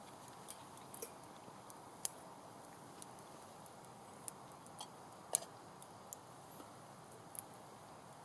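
Small wood fire crackling: irregular sharp pops and snaps, about ten of them, the loudest about five seconds in, over a faint steady hiss.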